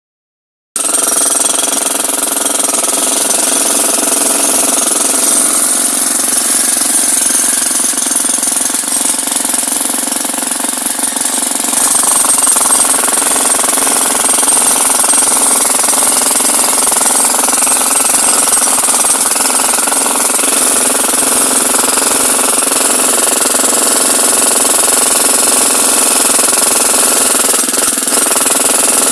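Hydraulic breaker hammer running continuously. It starts about a second in and gets a little louder about halfway through.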